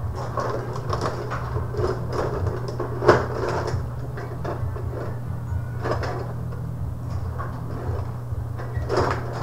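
Rod hockey table in play: irregular plastic clicks and clacks as the rods are pushed and spun and the players and puck knock against each other and the boards, with one sharp loud knock about three seconds in. A steady low hum runs underneath.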